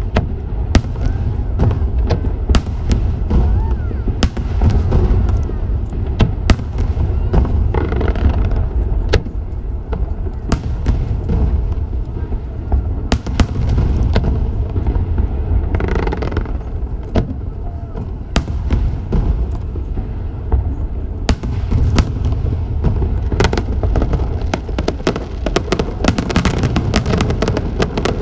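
Fireworks display: shells bursting in repeated sharp bangs over a constant low rumble. Near the end the bangs turn into a dense run of rapid crackling.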